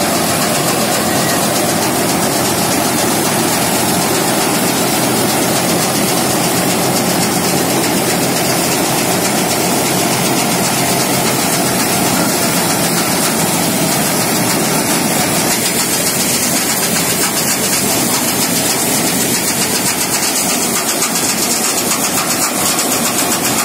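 Vikas tractor-mounted compound (mini combine) harvester working in wheat: the tractor engine running steadily under load together with the machine's threshing and conveying mechanism, a loud, even mechanical noise.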